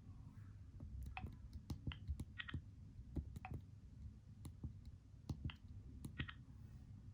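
Faint, irregular clicks of a Motorola RAZR V8's keys being pressed, about fifteen of them. Twice a click carries a brief ringing tone.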